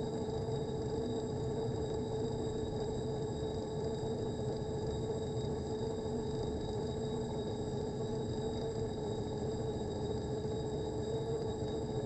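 Steady motor hum with a constant whine from a cable-camera trolley running along a wire, unchanging at a constant speed.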